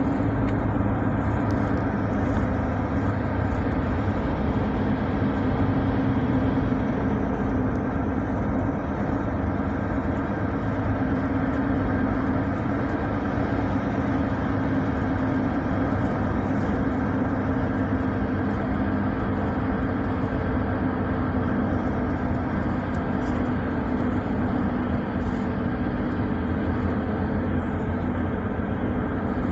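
Steady drone of a car driving at highway speed, heard from inside the cabin: a constant low engine hum under tyre and road noise, with no change in pace.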